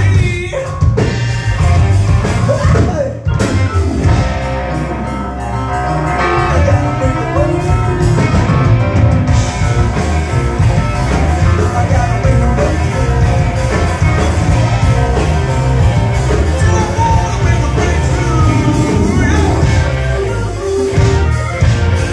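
Live rock band playing loudly: a singer's voice over electric bass, drum kit and keyboards, with a heavy bass line.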